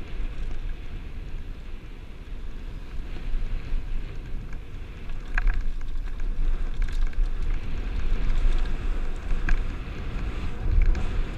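Wind buffeting the microphone of a helmet-mounted camera on a mountain bike, over the rumble of the tyres rolling on dirt and rock. Several sharp clicks and rattles from the bike come through in the second half.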